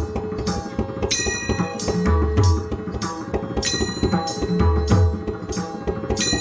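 Instrumental passage of a Marathi bhajan: hand-drum strokes with deep bass beats, and a bright ringing metallic strike about every two and a half seconds over held pitched notes.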